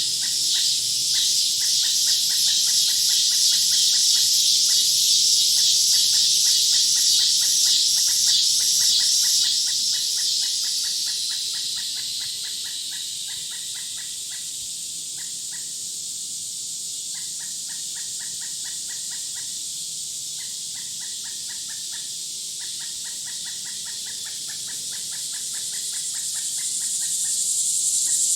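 Outdoor chorus of birds and insects: a dense, pulsing high-pitched chorus, loudest in the first ten seconds or so and then fading, over a steady high insect buzz that swells again near the end, with rapid trains of repeated chirps throughout.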